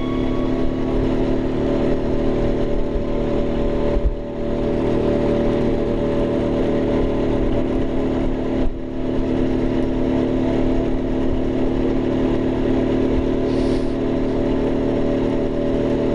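A vehicle engine running at a steady pitch, with two short dips in sound about four and nine seconds in.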